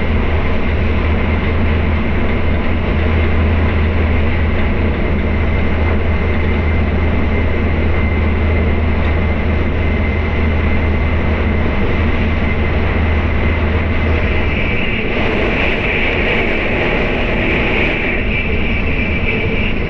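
Tokaido Shinkansen bullet train running at speed, heard from inside the passenger cabin: a steady low rumble under a hiss. About fifteen seconds in, the low rumble drops away and a brighter hiss swells for about three seconds.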